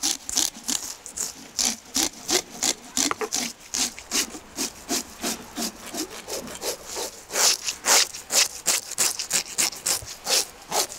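Rapid scraping strokes of blades scaling a whole salmon on a wooden table, about three or four strokes a second, with loose scales rasping off the skin.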